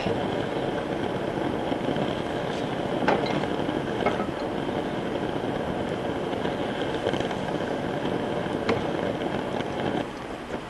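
Oxy-fuel torch flame hissing steadily as it heats the end of a steel axle red hot so that it can be upset to lock it in the caster. A few faint clicks sound over the hiss.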